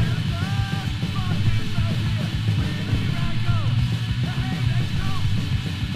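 Fast hardcore punk recording: a pounding drum beat of several strokes a second under a dense band wall and a shouted vocal line.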